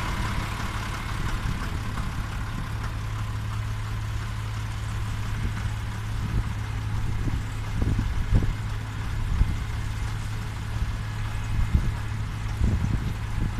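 Tractor diesel engine running steadily with a carrot harvester at work, with a few dull thumps in the second half.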